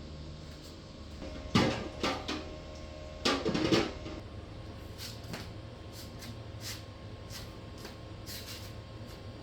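Kitchen handling sounds: a sharp knock, a second knock, then a short clatter of something wooden or hard being set down or moved, followed by a few light clicks.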